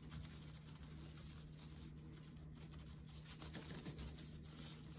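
Faint, irregular tapping and scratching as gloved hands work a cup of freshly poured wet concrete to bring out air bubbles, over a steady low hum.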